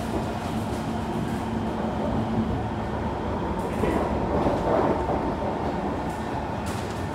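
Kawasaki C151 metro train running, heard from inside the carriage: a steady rumble of wheels on rail with a motor hum that fades out about two and a half seconds in. A few faint clicks come through.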